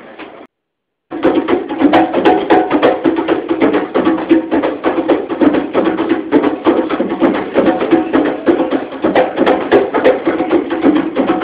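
Hand drums played by street drummers in a fast, dense rhythm of strikes. They start after a brief cut to silence about a second in.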